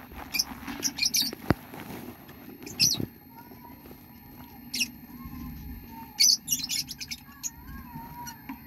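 Newly hatched budgerigar chicks peeping in the nest box: thin, high squeaks several times over, with a faint warbling chatter in the second half.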